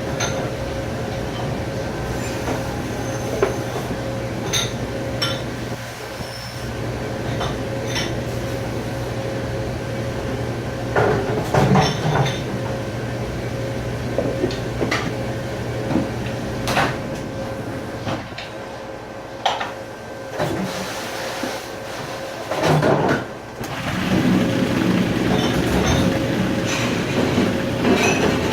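Commercial dishpit noise: a machine running with a steady drone and hum, with scattered clatters and knocks of dishes and racks, the loudest about eleven seconds in and again near twenty-three seconds.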